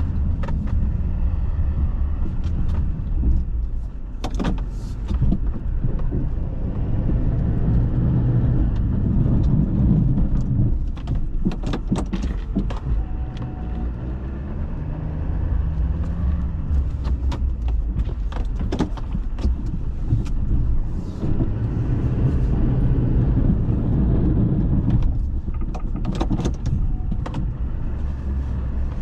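GMC pickup truck plowing snow: its engine running with a steady low rumble that swells and eases every several seconds, with frequent short clicks and knocks over it.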